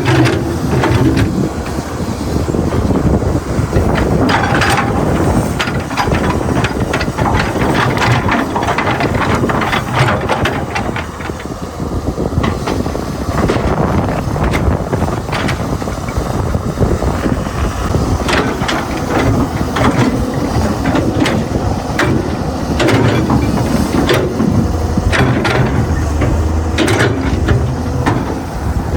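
Excavator at work: engine running under a steady noisy din, with repeated sharp clanks and knocks throughout.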